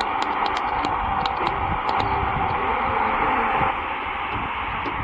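Static hiss from a Prunus portable radio's speaker while it is tuned on the AM band near a weak station, with a run of crackling clicks in the first second or so. The hiss drops slightly a little before the end.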